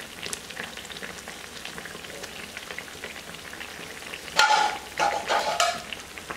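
Battered bread pakora deep-frying in hot oil in a small kadhai: a steady crackle of fine pops and sizzle. Around four and a half seconds in, a metal slotted spoon scrapes against the pan three times, louder than the frying.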